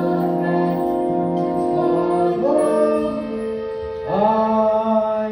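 Live pit orchestra with brass playing a show tune, holding sustained chords that change several times, with new chords swelling in about two and a half and four seconds in.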